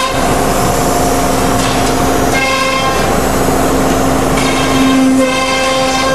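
CNC router with a 5-horsepower HSD spindle, running and cutting grooves in a sheet on the table. A steady low whine, with higher tones that change every second or two as the cutter moves.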